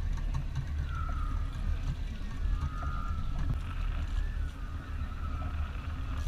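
Fishing boat's engine running with a steady low drone, with wind noise on the microphone. A faint wavering high whine comes and goes over it.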